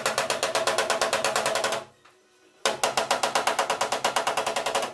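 Body hammer tapping quickly on the Toyota Avensis's steel rear panel edge to straighten a dent: two runs of light, even blows, about ten a second, with a brief pause a little before the middle.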